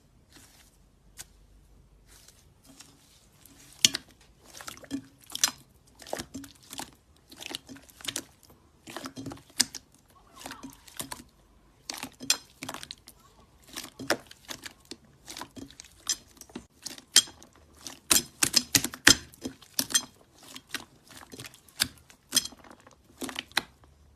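Crunchy slime being squeezed and pressed by hand, giving an irregular run of crackles and pops that starts sparse and grows busiest about three quarters of the way through.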